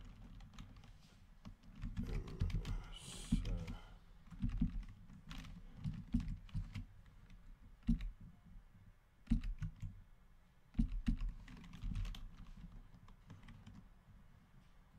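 Typing on a computer keyboard: irregular clusters of key clicks that stop a couple of seconds before the end.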